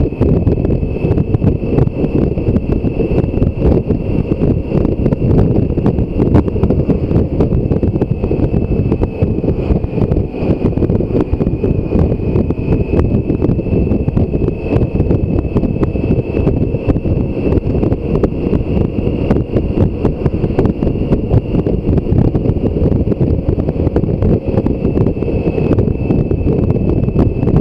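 Heavy wind noise on the microphone of a BMW K1600 GTL touring motorcycle riding at road speed: a steady, low rushing, with a thin high whine running through it.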